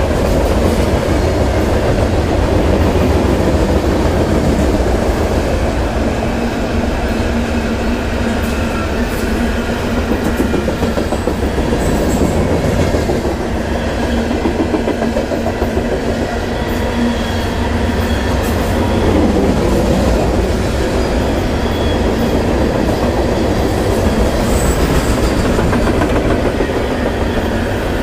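CSX freight train's cars rolling past: a steady loud rumble and clatter of steel wheels over the rail joints, with a faint high wheel squeal now and then.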